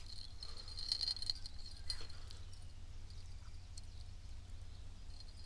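Outdoor ambience: a steady low wind rumble on the microphone, with a high insect chirring through the first second and a half and a few faint clicks.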